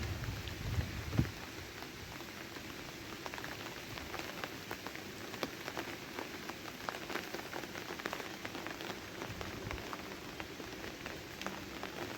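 Steady rain, with many individual drops heard as sharp ticks. A low rumble dies away about a second in.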